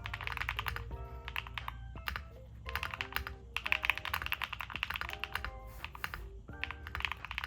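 Typing on a Neo60 Core 60% custom mechanical keyboard with HMX Latte switches and Osume Cafe keycaps: quick runs of keystrokes with a couple of brief pauses, over background music.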